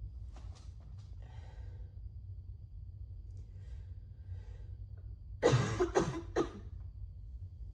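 Person with a cold coughing: a quick run of three coughs about five seconds in, after a few faint breaths.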